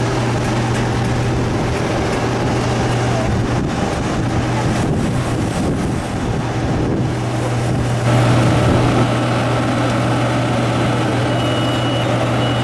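Steady, loud machinery drone beside a parked Airbus A320, a low hum under a rushing noise, growing a little louder about eight seconds in, with a thin high whistle near the end.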